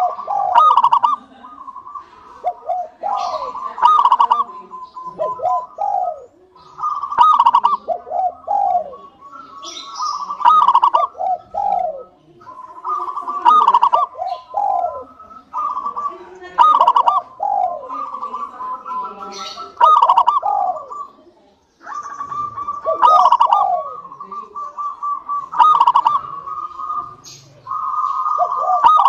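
Zebra dove (perkutut) cooing its song over and over, a burst of fluting notes roughly every three seconds, each phrase a steady held note with quick falling notes beneath it.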